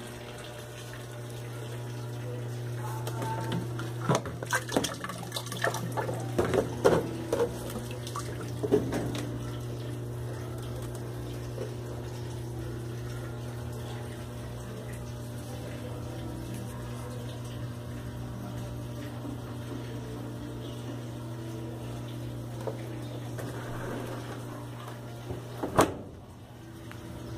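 Washing machine running with water splashing inside over a steady motor hum. A burst of irregular splashes and knocks comes a few seconds in, and a single sharp knock sounds near the end.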